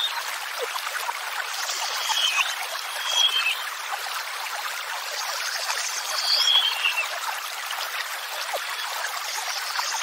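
Flowing water rushing steadily, with a bird giving a short high phrase a few times over it.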